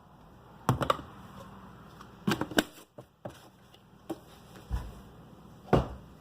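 Several short, scattered knocks and clicks from handling a protein powder scoop and tub over a blender cup.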